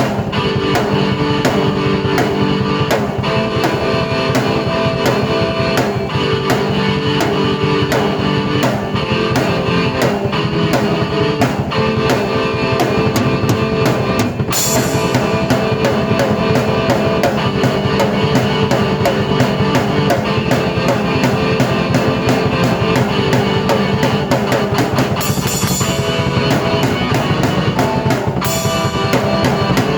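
Rock music played on a drum kit and keyboard together, with a steady fast drum beat and cymbal crashes about halfway through and twice near the end.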